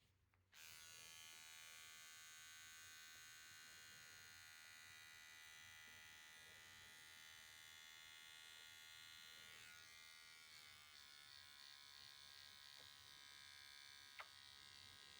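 Faint steady buzz of a small electric motor, like a pet hair trimmer, that switches on about half a second in. Its pitch shifts slightly about ten seconds in, and there is one short click near the end.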